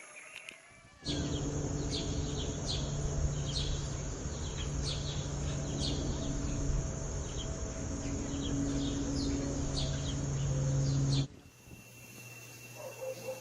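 Small birds chirping: many short, high, downward chirps, one or two a second, over a steady low hum and background noise. The sound starts abruptly about a second in and cuts off near the end.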